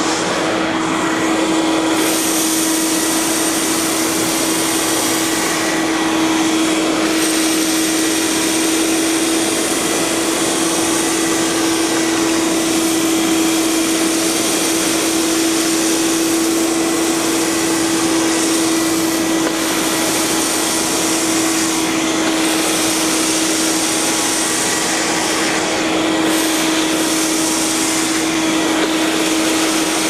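Ruwac WS2220 Quiet Red industrial vacuum running steadily, with a constant motor hum and the hiss of air through its 2-inch metal wand and hose. Cast iron chips are drawn up the wand, so the high hiss and rattle rise and fall as the wand moves over the pile.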